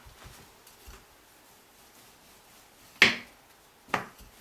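Faint soft pats of a hand pressing a floured dough ball flat on a countertop, then two sharp knocks about a second apart, the first louder, as a wooden rolling pin is set down on the counter and dough.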